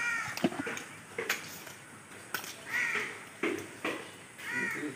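Crows cawing: three separate harsh caws spread across the few seconds, with a few sharp knocks in between.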